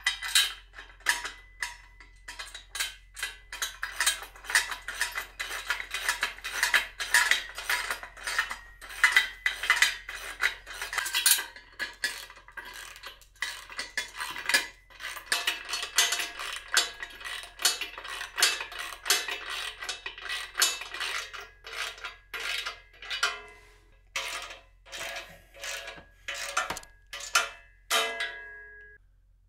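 Socket ratchet clicking in quick back-and-forth strokes, tightening a bolt on a steel frame with the nut held by a second wrench, with metallic clinks. About two strokes a second, stopping near the end.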